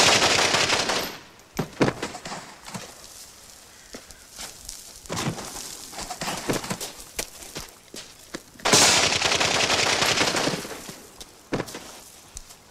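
Two long bursts of rapid gunfire, one at the start and another about nine seconds in, with scattered single sharp cracks and knocks between them as a body tumbles down a dry gravel slope.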